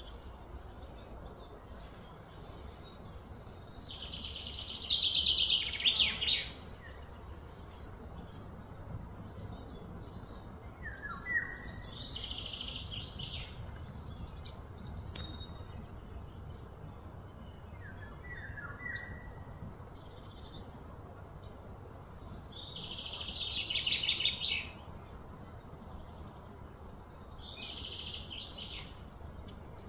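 Birds calling: four rapid, high trills of a second or two each and a few short falling chirps, over a steady low background hum.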